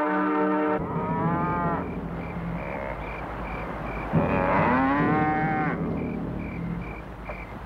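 Cattle lowing: long, drawn-out moos, one tailing off about a second in and another rising and falling from about four seconds in. Crickets chirp steadily beneath.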